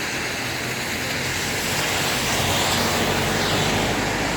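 Engine rumble with a rushing hiss, slowly swelling to a peak just after the middle, like a motor vehicle going past.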